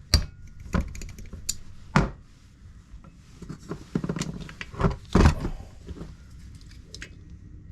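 Irregular sharp metallic knocks and taps, several of them, as the drive tang is knocked off a freshly installed Helicoil stainless wire thread insert in an alloy crankcase with the tang break-off tool.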